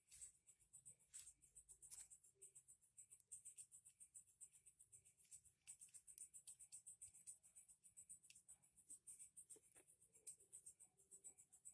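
Faint, quick scratching and small ticks of a small screwdriver working on a rotary magazine's chambers and clear cover, several a second, with a few sharper clicks.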